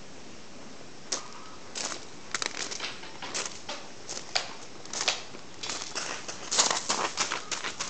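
Footsteps crunching on gravel, starting about a second in and going on at a walking pace of roughly two steps a second.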